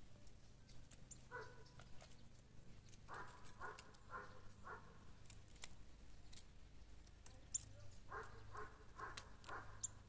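A dog barking faintly in short runs of three or four barks, with small high ticks and chirps in between.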